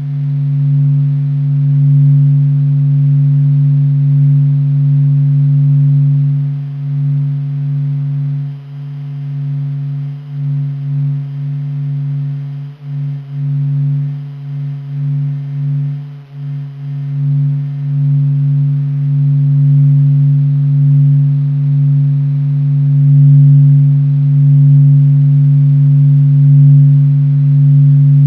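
The Sun's acoustic oscillations from NASA data, sped up into a low steady hum with a few fainter higher tones above it. Its loudness wavers and drops out briefly several times in the middle of the stretch, then it runs evenly again.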